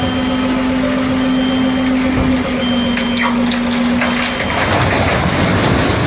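Heavy construction vehicle's diesel engine running loudly, with a high reversing alarm beeping about once every second and a half. The engine's steady tone drops away about four seconds in, leaving a rough, noisy rumble.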